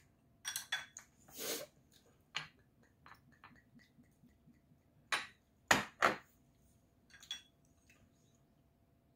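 Tableware clinking and knocking on a glass-topped table: a spoon tapping against bowls, a few small clicks, and two louder knocks about six seconds in as the green glass soju bottle and shot glass are handled and set down.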